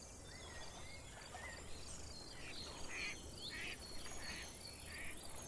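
Outdoor ambience of several birds chirping and calling over a steady high hiss, with a few louder, harsher calls in the second half.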